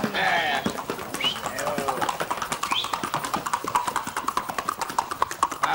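Quick, even hoofbeats of a Colombian paso horse moving in its fast four-beat gait, about seven or eight sharp strikes a second. Faint voices are heard among them.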